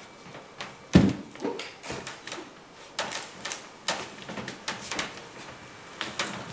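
Footsteps and shuffling feet on a wooden platform: irregular knocks and thuds, the loudest about a second in, then several lighter ones.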